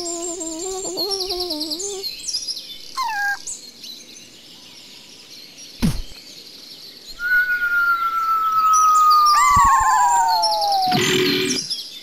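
Birdsong with small chirps runs throughout. There is a wavering, voice-like tone in the first two seconds and a sharp click about halfway. The loudest part is a long whistle falling slowly in pitch, ending in a short crash-like burst near the end.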